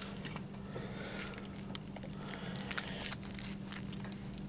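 Packaging being handled: light crinkling and rustling with scattered small clicks, over a faint steady hum.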